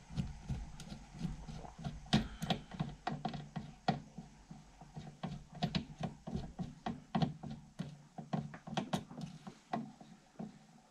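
Irregular small metal clicks and knocks of parts being handled at the top of a spindle sander's spindle, as the spindle assembly is taken apart to fit the belt sanding attachment.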